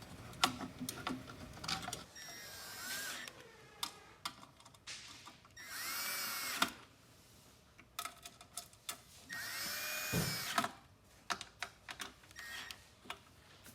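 A power drill driving screws in three short runs, its motor pitch rising and falling with each run, with clicks and knocks of handling between the runs.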